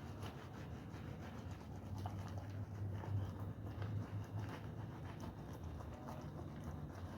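A wet, foamy wool carpet being scrubbed by hand: a dense run of short scratchy strokes over a steady low hum that swells from about two to four and a half seconds in.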